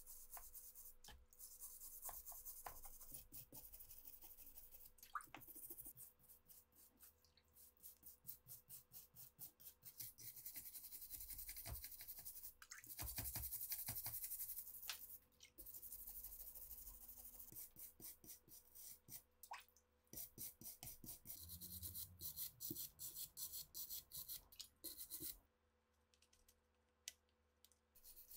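Small wire brush scrubbing wet, rusty gun metal in quick back-and-forth strokes, a scratchy rasping rub that stops briefly near the end.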